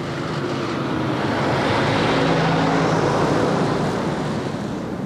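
Heavy flatbed truck loaded with hay bales driving past close by. Its engine and tyre noise swells to a peak about halfway through and then fades away.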